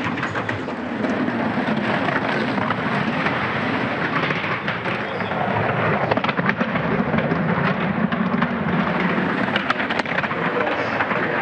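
Luge sled's steel runners hissing and rumbling over the ice of an artificially iced track as the sled speeds through the curves, with many sharp clicks in the steady noise.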